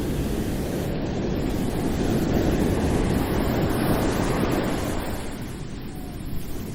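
Ocean waves washing in as a steady surf, swelling to a peak in the middle and easing off near the end.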